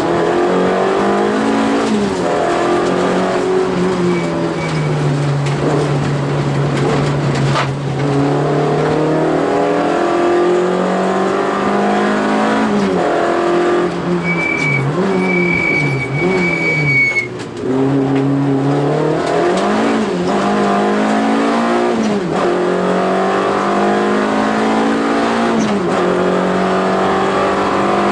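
Peugeot 205 rally car's engine heard from inside the cabin, pulled hard up through the revs and dropping back again and again with gear changes and lifts for corners. A brief high squeal sounds for a few seconds about halfway through.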